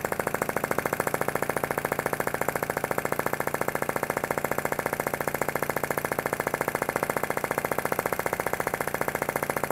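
PM Research Solar Engine #3, a flame-licker (vacuum) model engine, running steadily with a rapid, even clatter of its piston and valve on every stroke. It is still warming up and not yet at its full speed.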